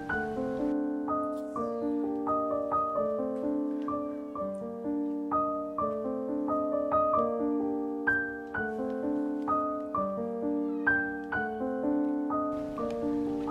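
Background solo piano music: a steady run of notes over lower held tones.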